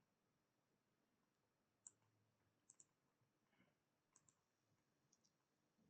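Faint computer mouse clicks, a single one about two seconds in and then several close pairs like double-clicks, over otherwise near silence.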